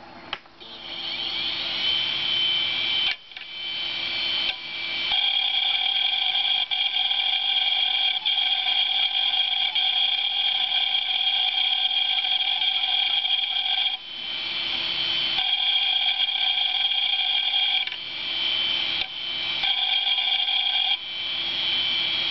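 A failing hard disk drive, running with its cover off, gives a steady high-pitched whine from its spinning platter and motor. The whine rises in pitch within the first couple of seconds. It then cuts out into a rougher noise several times and comes back each time.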